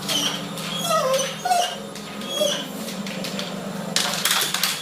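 A dog whimpering and yipping in short, falling whines over a steady low hum.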